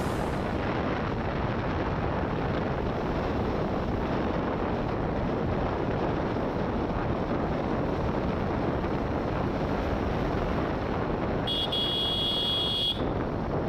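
Steady wind rush on the microphone over the running noise of a TVS Apache RR310 motorcycle cruising at about 50 km/h. Near the end a high-pitched tone sounds for about a second and a half.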